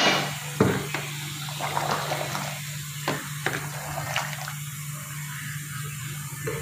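A spatula stirring thick chicken and potato curry in an aluminium pressure cooker, the gravy sloshing, with several light knocks of the spatula against the pot. A steady low hum runs underneath.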